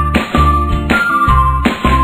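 Background music with a steady beat: a bright, chiming melody over a bass line that changes note about every half second.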